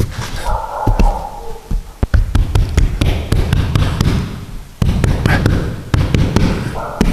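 Irregular knocks, taps and thumps of hands working a windscreen and its rubber seal into the car's window opening.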